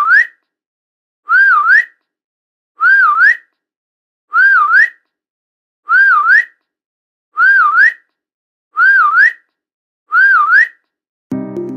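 A short whistled call to a dog, a quick dip in pitch and then a sharp upward sweep, repeated the same way about every second and a half, eight times. Electronic music comes in just before the end.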